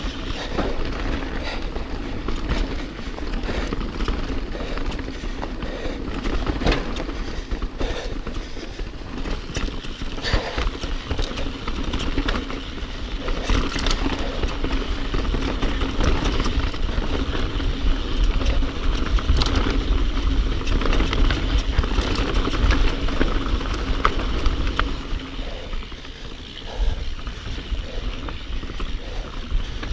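Mountain bike ridden fast down a rocky dirt singletrack: tyres rolling over dirt and stones, with the bike rattling in frequent sharp knocks, over a steady low rumble of wind on the microphone. It eases briefly near the end.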